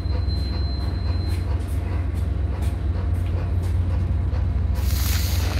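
Steady low rumble, with a short rush of noise near the end.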